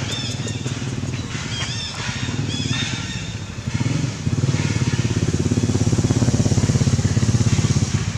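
An engine running with a rapid low pulsing, which grows clearly louder about four seconds in. Short high-pitched squeaks come in the first few seconds.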